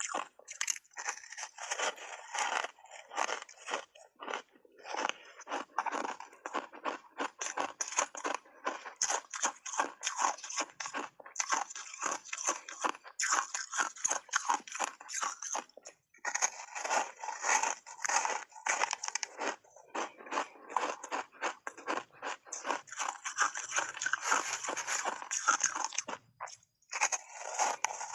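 A person chewing big bites of hard ice bars coated in matcha powder: rapid, dense crunching, broken by short pauses a few times.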